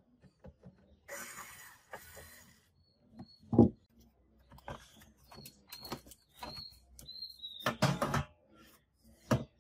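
Small cordless screwdriver runs briefly as it backs out the last cover screw. Then the sheet-metal top cover of a 1976 Technics SU-7700 amplifier is lifted off, with knocks, clicks and faint metal squeaks. There is a loud thump about a third of the way in and a cluster of clanks near the end.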